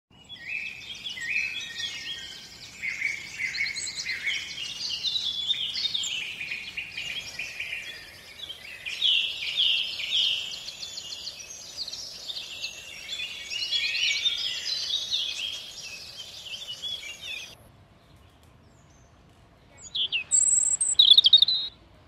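Small songbirds singing fast, varied warbling phrases, with an abrupt switch to another song about a third of the way in. After a short pause near the end come a few short, loud, high-pitched calls.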